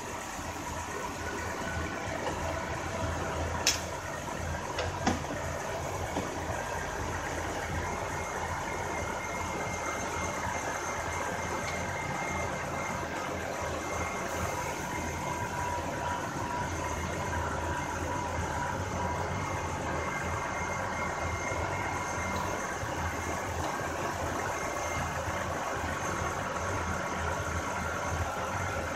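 BMW 525i's 3.0-litre straight-six idling steadily with the newly fitted AC compressor engaged and running quietly. Two short sharp clicks sound about four and five seconds in.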